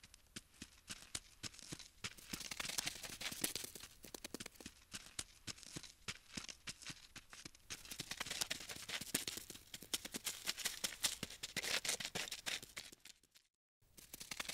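Insect-crawling sound effect: a dense run of rapid, dry clicks and scratches that swells and fades, breaking off briefly near the end.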